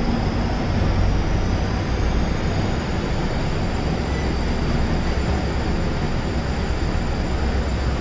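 Passenger train running along the track: a steady rumble with a faint high whine above it that rises slightly about a second in.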